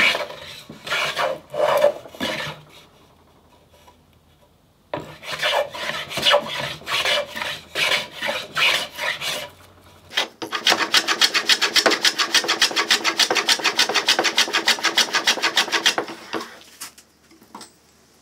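A hand plane shaving wood on a mitre shooting board, in strokes about two a second: one run near the start, a pause of a couple of seconds, then another run. From about ten seconds in comes a faster run of short rasping strokes, about six a second, lasting some five seconds, followed by a few light knocks.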